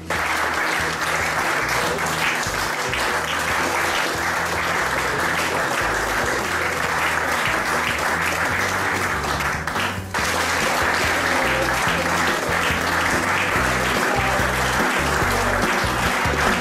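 Audience applauding steadily, with background music underneath. The clapping breaks off for a moment about ten seconds in, then carries on.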